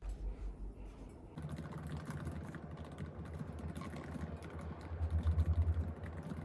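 Many quick, light clicks over a low hum that grows louder about a second and a half in.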